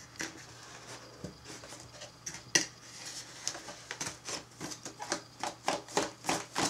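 Cardboard packaging being handled: a tight-fitting inner box worked out of its outer cardboard box, giving a run of irregular scrapes and clicks, with one sharp click about two and a half seconds in and busier handling in the second half.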